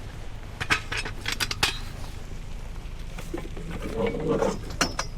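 A few sharp metallic clinks and knocks, scattered over a steady low rumble.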